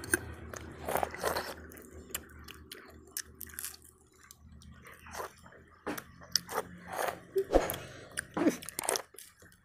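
Two people eating puris dipped in curry at speed: close chewing and biting, with irregular small crunches, lip smacks and clicks.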